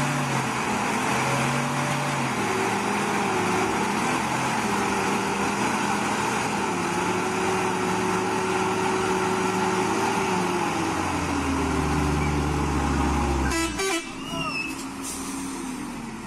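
Heavily loaded log truck's diesel engine revving hard under load as the truck tries to pull through deep mud, its pitch rising and falling. A deeper rumble builds toward the end, then the loud engine sound cuts off abruptly.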